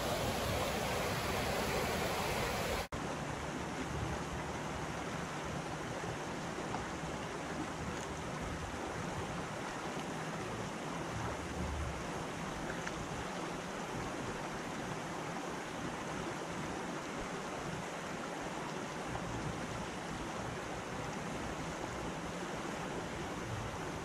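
Creek water rushing over shallow rocky rapids in a steady noise. About three seconds in it cuts off abruptly and resumes quieter, now with low rumbling gusts of wind on the microphone.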